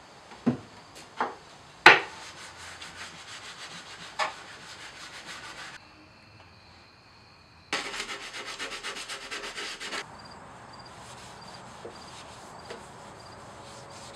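Hand sanding of a plywood edge with a sheet of sandpaper, in quick, even back-and-forth strokes. It comes in two spells, the second louder, after a few sharp knocks on the wood near the start.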